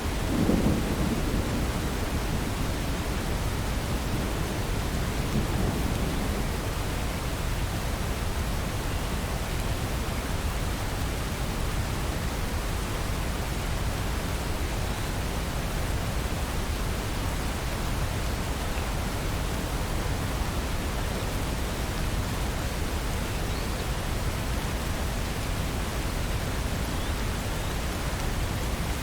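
Steady rain hiss with light thunder: a low rumble swells just after the start, and a fainter one follows about five seconds in.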